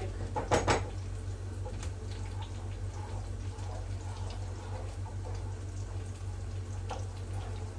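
Tomato paste sizzling in hot frying oil in a pan, stirred with a wooden spoon, with a few knocks of the spoon about half a second in.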